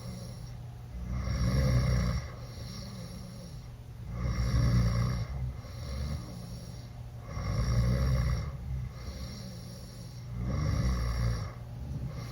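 A teenage boy snoring loudly with his mouth open after a night of drinking. Four rough snores come about three seconds apart, with quieter breathing between them.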